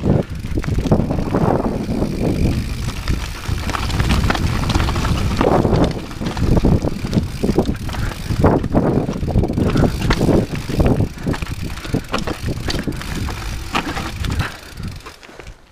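Rocky Mountain 790 MSL mountain bike riding down a rocky dirt trail: tyres crunching over stones, with the bike rattling and knocking sharply over bumps. It quietens near the end.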